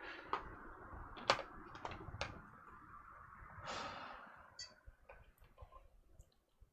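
Sharp clicks and knocks of hand-handling as a lab bench power supply lead is connected to a laptop, four of them in the first two and a half seconds, then a short scraping rustle about four seconds in and a few faint ticks.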